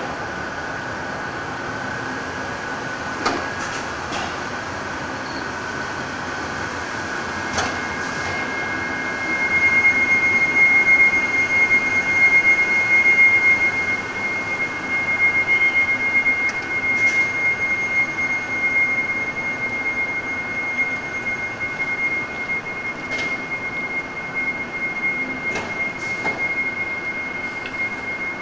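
Ae 8/14 11801 electric locomotive rolling slowly past, with a high steady squeal that comes in strongly about nine seconds in and holds to the end. A few sharp clicks are scattered through it.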